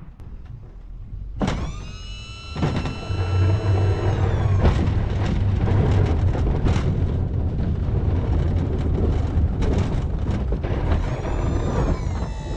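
Loader pushing snow with a 16 ft Sno-Power plow: the engine runs under load with a steady low rumble, and the plow's edge scrapes through the snow. A high whine starts abruptly about a second and a half in, slowly falls and fades a few seconds later, and comes back near the end.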